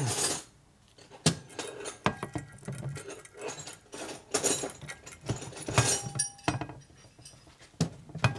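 Loose steel rollers of an engine's main roller bearing clicking and clinking as they are pushed by hand into their cage in the crankcase: scattered sharp metallic clicks at uneven intervals.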